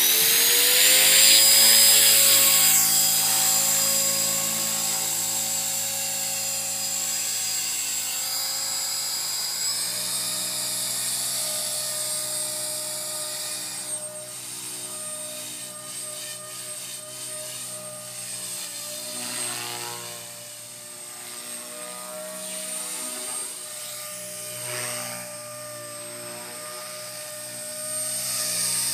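Blade 450X electric RC helicopter's motor and rotor whine, rising quickly in pitch as it spools up, then holding a steady high whine with rotor buzz in flight. The pitch steps up about ten seconds in, and the sound grows fainter as the helicopter moves away.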